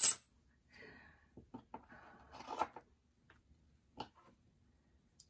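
Craft supplies being handled on a desk: soft paper rustling and light clicks and taps, with one sharper tap about four seconds in.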